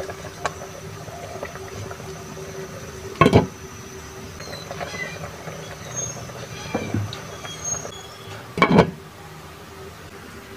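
Soup simmering in a pot on a gas burner while a spatula stirs it, with two loud clanks against the pot, about three seconds in and near the end, the second the louder.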